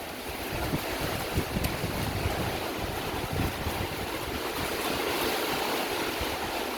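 Hurricane storm: heavy rain and strong wind making a steady rushing noise, with gusts buffeting the microphone in uneven low rumbles.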